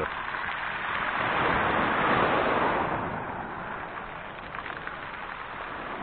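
Sea wave washing onto the shore: a surge of rushing surf that swells, then fades away about halfway through.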